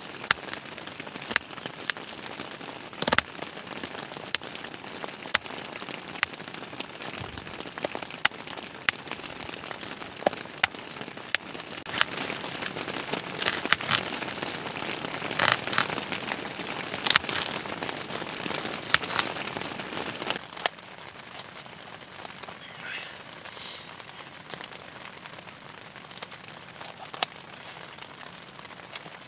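Heavy rain falling on a tent, a steady hiss that becomes quieter about two-thirds of the way through, with irregular sharp clicks of a knife slicing an onion and a tomato against a cutting board.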